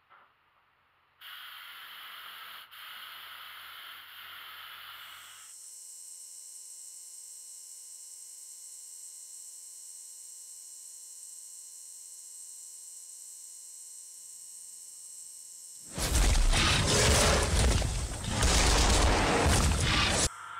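Aerosol spray can of gold paint spraying, starting with a hiss about a second in, with a short break, then going on as a steady high whine. Near the end, a loud rushing noise, the loudest thing here, close to the microphone.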